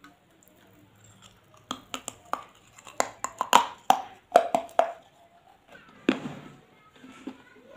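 Hard, crisp crunching as a piece of baked clay pot is bitten and chewed, a quick run of sharp cracks between about two and five seconds in, then a short puff of breath out.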